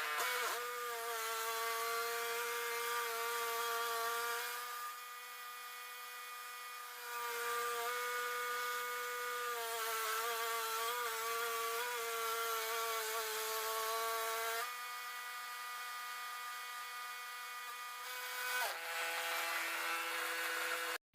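Woodmizer LT10 bandsaw mill running with a steady pitched whine while sawing black walnut. Its level dips twice, and near the end the pitch drops to a lower steady tone as it slows.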